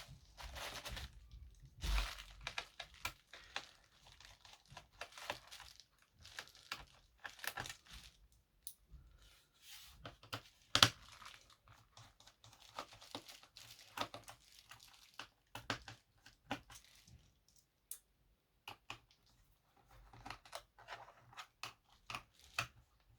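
Packaging being handled and opened, with crinkling and tearing rustles and scattered clicks. The sharpest snap comes about eleven seconds in.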